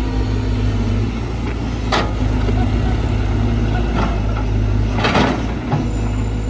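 Heavy diesel machinery engine running steadily at a low drone, with several short, sharp hissing or clanking noises over it.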